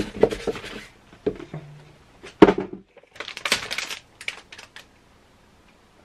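Plastic bag crinkling and rustling as a computer part is unwrapped, with scattered clicks and one sharp knock about two and a half seconds in.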